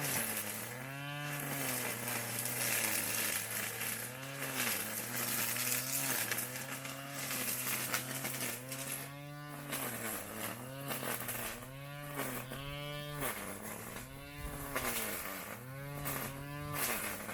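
Small two-stroke engine of a grass cutter running hard, its pitch repeatedly dropping and climbing back several times, with a hiss above it.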